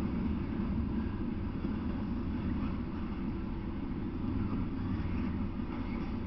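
Double-stack container freight train passing, with a steady low rumble of its wheels on the rails.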